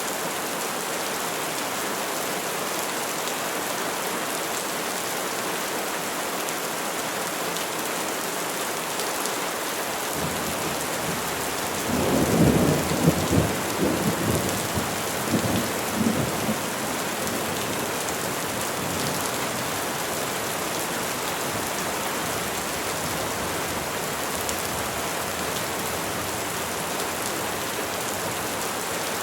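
Steady rain falling on trees, with a rumble of thunder about twelve seconds in that rolls and crackles for some four seconds before fading back into the rain.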